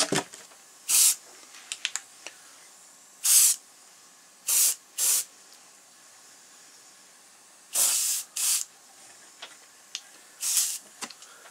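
Airbrush spraying paint in about eight short hissing bursts, each under half a second, with a few faint clicks between them.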